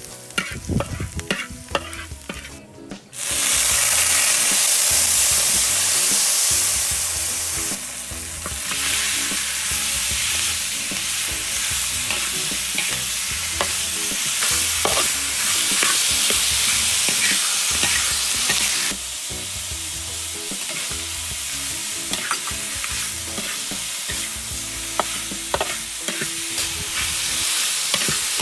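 Metal spatula scraping and clinking in a steel wok as garlic fries. About three seconds in, a sudden loud hiss as raw chicken pieces hit the hot oil, then steady sizzling while they are stirred, with the spatula clinking against the pan.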